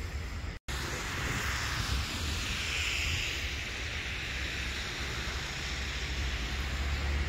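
Wind buffeting an outdoor microphone: a steady low rumble with a hiss over it. The sound drops out completely for a moment under a second in, at an edit.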